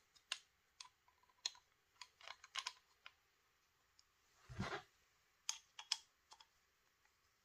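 Faint scattered clicks and small knocks of parts being handled as the back cap is fitted and screwed onto a Milsig FSC paintball carbine, with one duller, heavier knock a little past halfway.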